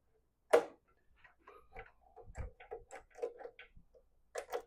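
Small hand-tool and metal-part clicks and taps while working on a motorcycle's front brake cable end: one sharp click about half a second in, a run of light irregular ticks and taps, and a few more sharp clicks near the end.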